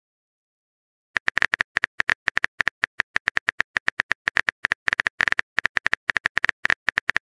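Rapid keyboard-tap clicks of a texting app's typing sound effect, about eight a second, starting after a second of silence as a message is typed out.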